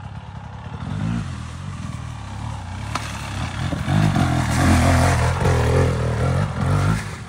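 Dirt bike engine revving unevenly, pitch rising and falling with the throttle as it rides through a muddy rut. It grows louder and is loudest from about four seconds in as the bike passes close by, dropping away just before the end.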